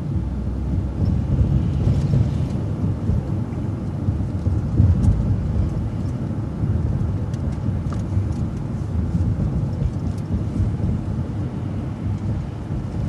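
City transit bus driving along, its engine and road noise making a steady low rumble.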